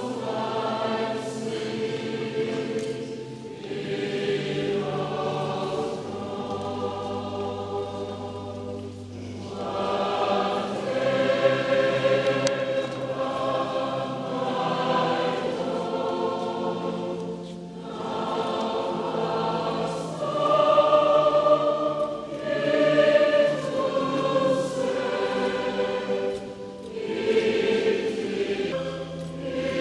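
A choir singing a hymn in long, held phrases, with brief pauses between lines.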